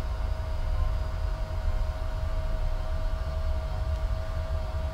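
Electric tilt actuator of a Quickie Q700-UP M power wheelchair running as the seat tilts back: a steady, even motor whine over a low hum.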